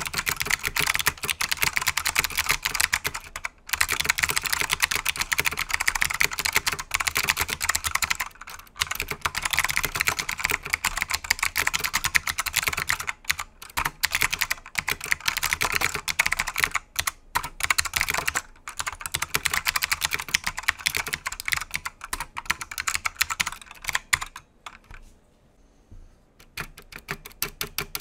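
Fast typing on a KBParadise V80 mechanical keyboard with Matias Click switches (clicky Alps clones) and ABS keycaps: a dense run of sharp key clicks. Near the end, after a brief pause, comes a run of evenly spaced single key presses.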